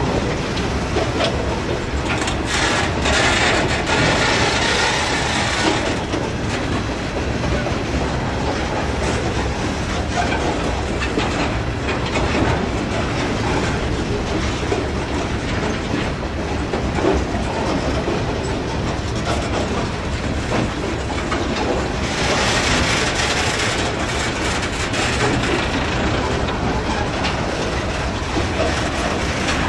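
Herzog ballast cars of a freight train rolling past close by: a steady rumble of steel wheels on rail with clickety-clack over the joints. A brighter hiss swells twice, a few seconds in and again about three quarters through.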